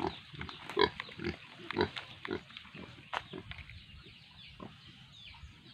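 Pigs, a sow and her piglets, grunting and squealing in short, quick calls that thin out and grow fainter after the first few seconds.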